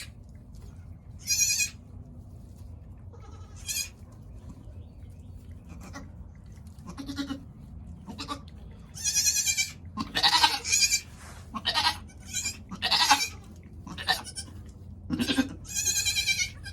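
Newborn goat kids bleating: a run of short, high-pitched calls, more frequent in the second half, with a few lower calls among them.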